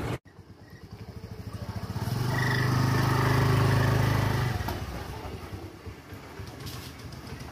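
Motor scooter engine running as the scooter rides slowly up close, loudest about three to four seconds in, then fading as it moves away.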